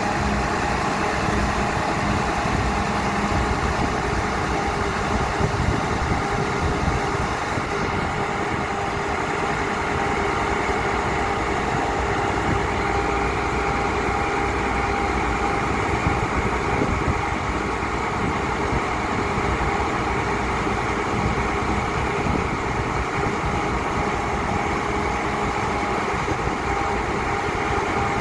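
Diesel engine of a tracked horizontal directional drilling rig running steadily at a constant level.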